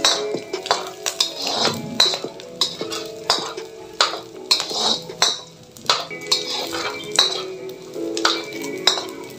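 A spatula scraping and knocking against a metal wok in irregular strokes, about one or two a second, as pork cubes are stirred in their own rendered fat. Background music plays underneath.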